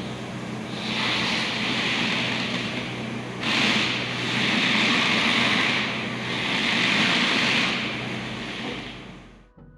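Toyota Corolla Cross hybrid's engine running under a steady low hum, its rushing noise swelling three times as it is revved, then fading away near the end.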